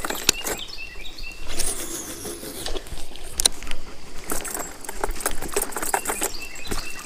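A baitcasting reel casting and being cranked: line pays off the spool, then the reel is wound with repeated clicks and rattles as a twitch bait is ripped and retrieved.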